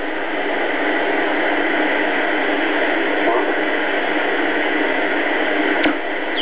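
Static hiss from a Philco-built BC-312G vacuum-tube shortwave receiver tuned between stations, with a faint steady whistle in the hiss. A single sharp click comes near the end.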